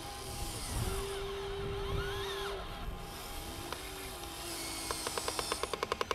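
Electric motors of a Huina RC excavator whining as the arm and bucket move, the pitch rising and falling with each motion. A rapid, even clicking starts near the end.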